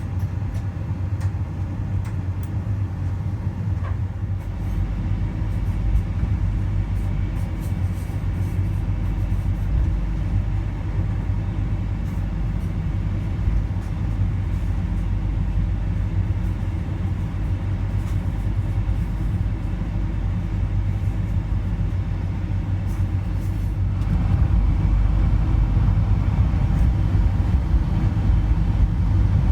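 Inside the cabin of a Boeing 747-400: a steady low rumble of the engines and airframe as the jet taxis out for take-off, getting louder about 24 seconds in.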